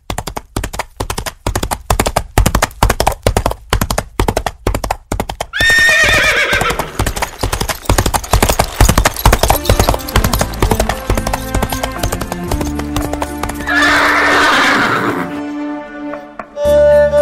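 A horse's hooves clip-clop in a quick, even rhythm. The horse neighs once about six seconds in, with a falling whinny, and calls again around fourteen seconds. Music with long held notes fades in under the hoofbeats in the last few seconds.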